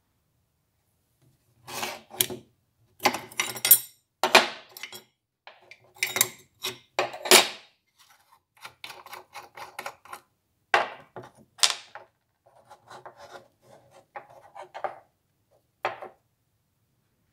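Parts of an old Falcon No.220 cast-iron block plane being taken apart by hand and set down on a workbench: a run of separate metal clanks and scrapes, loudest in the first half, then smaller clicks and rubbing as the parts are handled, with one last clank near the end.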